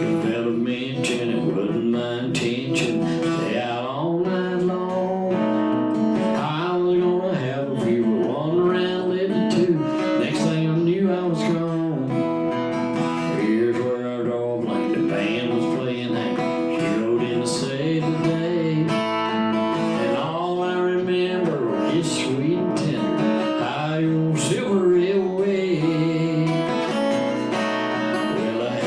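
Acoustic guitar playing an instrumental break in a country song, strummed and picked with no singing.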